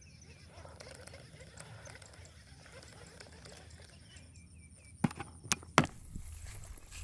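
Quiet outdoor ambience with faint chirping in short repeated notes, twice. About five seconds in come three sharp clicks in quick succession.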